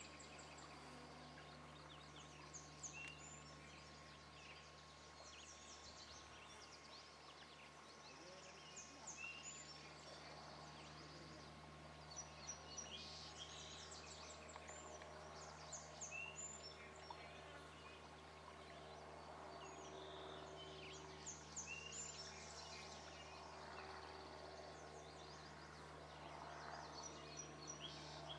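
Quiet outdoor ambience with many small bird chirps and calls scattered throughout, over a faint steady hum.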